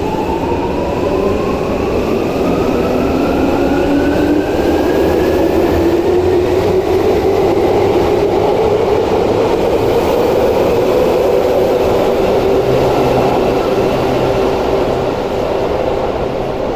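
Stainless-steel Tokyu commuter train pulling out of an underground station platform. Its motors whine, rising in pitch over the first several seconds, over the steady running noise of the cars going past.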